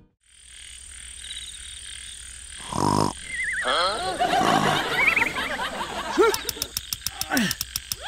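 Dubbed animal sound effects: croaking with squeaky gliding calls over a steady high hiss, a thud about three seconds in, and a quick run of clicks near the end.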